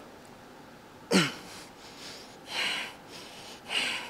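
A man grunting once with a falling pitch about a second in, then breathing out forcefully twice, straining through high-repetition cable biceps curls.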